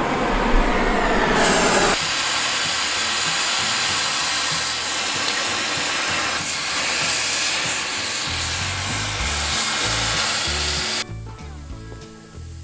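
Oxy-fuel torch flame hissing steadily as it heats spots on steel exhaust header tubes to red heat so they can be bent. The hiss stops abruptly about eleven seconds in.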